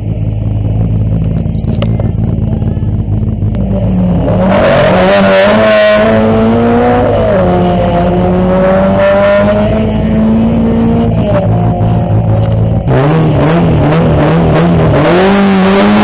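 Rally car engine, a steady low hum at first, then from about four seconds in revving loudly with its pitch rising and falling repeatedly. About thirteen seconds in the sound changes abruptly to another rising and falling engine note.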